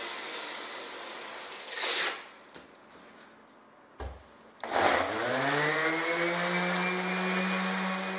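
Random orbital sander running on aluminium sheet, dressing its faces. It stops about two seconds in. There is a click about four seconds in, and the sander starts again shortly after, its pitch rising as the motor spins up and then running steady.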